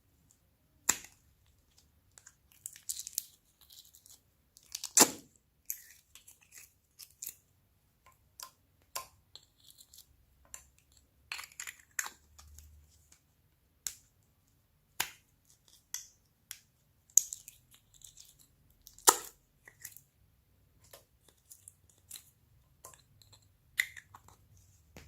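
Slime being mixed and squeezed, giving irregular sticky crackles, clicks and pops, with a few sharper, louder pops.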